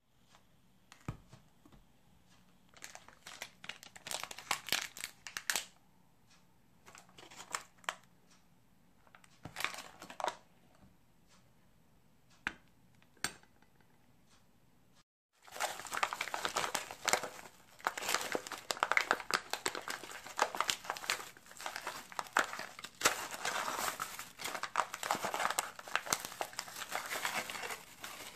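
Plastic packaging crinkling. First come scattered short rustles and taps as wrapped packages are handled, then, about halfway through, a steady crinkling of a digestive biscuit wrapper and a thin plastic bag as the biscuits are tipped into the bag.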